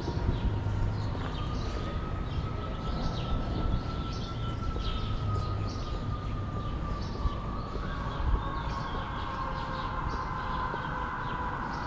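A distant siren wailing, its pitch rising and falling slowly, over low city street rumble, with small birds chirping throughout.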